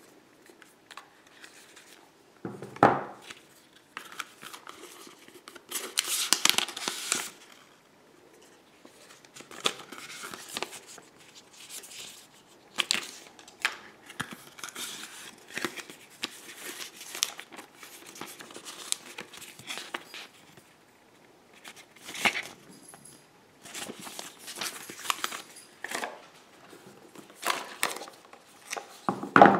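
Paper and cardboard packaging of an iPhone 7 box rustling, sliding and crinkling as hands handle it: the paper documentation sleeve and the card accessory tray. Irregular rustles broken by short sharp taps and clicks.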